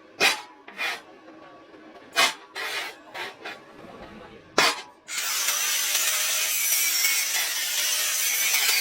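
Several sharp knocks and clanks of metal parts being handled, then about five seconds in a steady, loud, harsh hissing noise of metalworking starts and keeps on.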